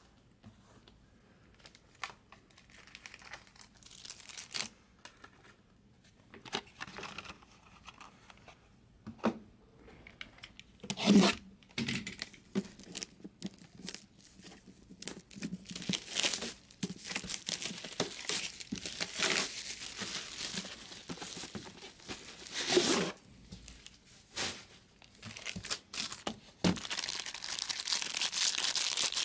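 Clear plastic wrapping being torn and peeled off a sealed trading-card box and crumpled, crinkling in irregular bursts that grow denser, with a long unbroken stretch of crinkling near the end. A few sharper handling knocks come about 11 and 23 seconds in.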